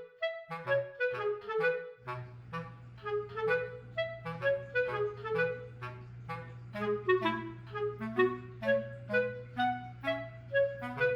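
Light background music: a bouncy melody of short, evenly paced notes, with a steady low bass note that comes in about two seconds in.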